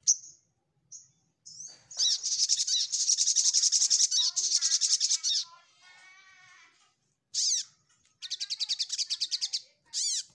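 Sogok ontong sunbird singing its rival-seeking challenge song: two long, rapid high-pitched trills with a lower warble between them, and short sharp calls between phrases.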